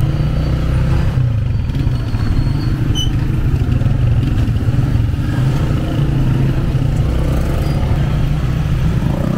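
Motorcycle engine of a tricycle (motorcycle with sidecar) running steadily under way, heard from the rider's seat.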